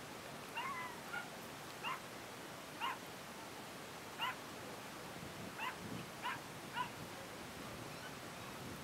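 A dog giving short, high-pitched yips, about seven in all, spaced irregularly roughly a second apart.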